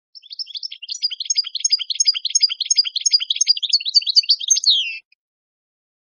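European goldfinch singing: a rapid run of twittering chirps and trills that ends about five seconds in on a falling note.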